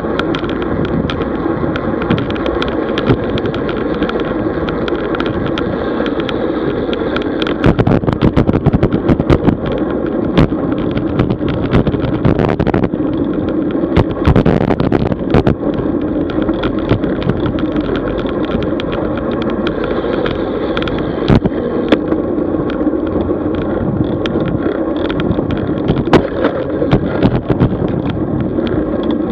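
Road bicycle on the move: steady tyre and wind noise, with clusters of sharp rattles and clicks from about a quarter to halfway through and a few more near the end.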